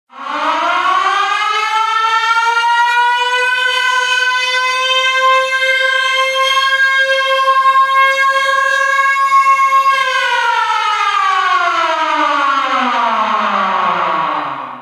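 Siren sound effect: one rich tone that winds up in pitch over about two seconds, holds steady, then winds down from about ten seconds in until it stops.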